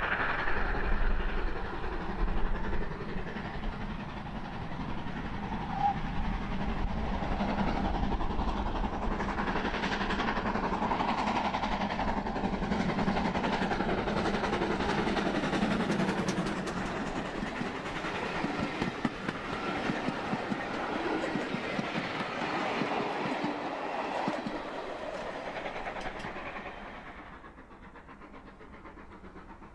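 GWR Manor class 4-6-0 steam locomotive 7828 'Odney Manor' passing under steam with a train of coaches, the wheels clicking over the rail joints. About 27 seconds in the sound drops to a quieter, more distant train.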